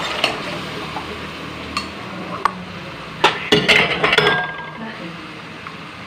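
Metal spoon scraping and clinking against a metal cooking pan while stirring and turning pieces of tilapia: a few single clinks, then a quick run of loud clinks about three to four seconds in.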